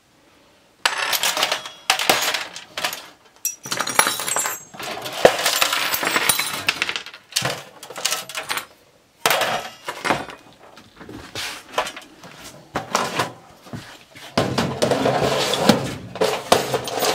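Loose small metal sewing machine parts clattering and jingling as they are tipped out of a steel drawer onto a wooden table, in several long bursts.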